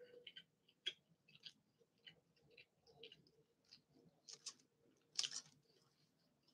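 Faint chewing and small mouth clicks from a person eating tacos, with a short louder noise about five seconds in.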